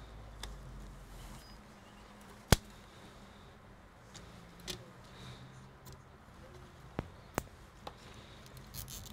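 Sharp plastic clicks and light knocks from a laptop cooling fan being lifted out of its bay and handled with gloved hands. One loud, sharp click comes about two and a half seconds in, a few smaller ones follow, and a quick cluster comes near the end.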